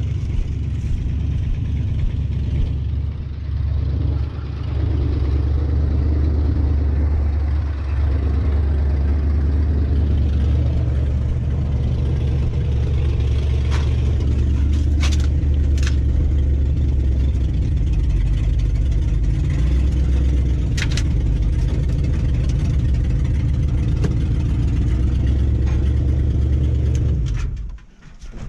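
2005 Ford Ranger's 4.0-litre V6 running as the truck is driven, a steady low rumble with a few sharp clicks around the middle. The rumble stops abruptly near the end.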